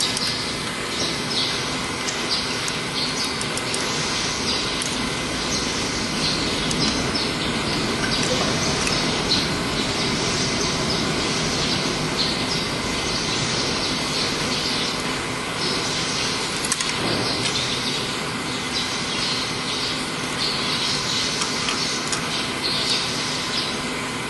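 Steady machinery noise: a continuous hum with a hiss that swells and fades, and a few faint clicks.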